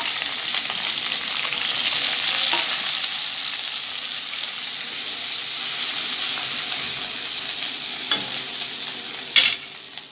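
Chopped onions, curry leaves and green chillies sizzling in hot oil in a wok as they are stirred with a silicone spatula: the tempering for aval upma. Two sharp knocks near the end, the second the louder.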